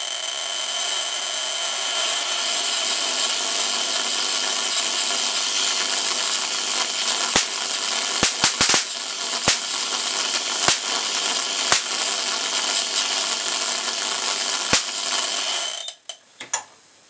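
High-voltage DC flare corona discharge driven through a small series spark gap: the gap fires rapidly in a steady, high buzzing hiss while the pulsed corona glows from a hacksaw blade toward a metal plate. Several sharp cracks between about seven and fifteen seconds in are sparks breaking down across the main gap. The buzz cuts off about a second before the end as the voltage is switched off.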